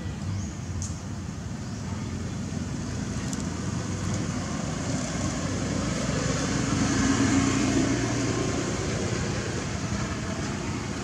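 A motor vehicle passing by, its engine and tyre rumble swelling to a peak about two-thirds of the way through and then fading.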